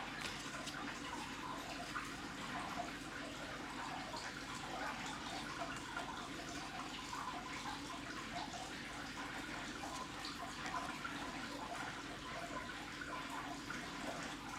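Trading cards being handled and slid against one another: a faint, continuous soft rustle with small irregular ticks.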